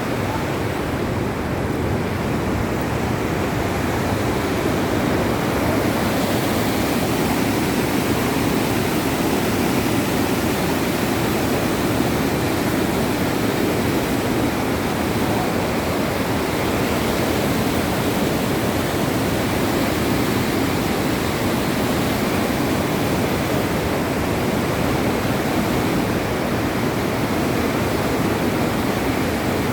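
River in heavy flood, its floodwater rushing steadily.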